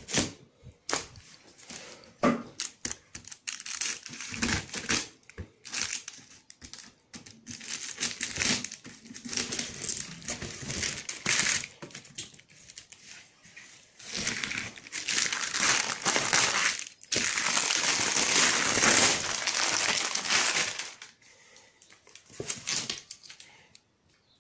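Clear plastic wrap around a cardboard box being cut and pulled off, crinkling and tearing in irregular bursts, with a long stretch of continuous loud crinkling past the middle.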